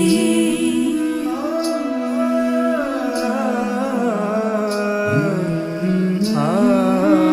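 Background music from a Hindi romantic song, in a passage between sung lines: a gliding melody over a soft tick about every second and a half.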